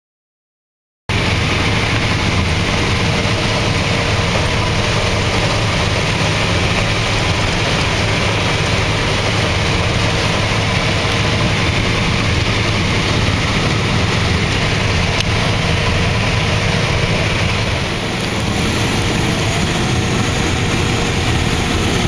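Claas Lexion 595 combine harvester running steadily while harvesting corn, heard from the cab: a loud, even machine noise with a low hum, starting about a second in.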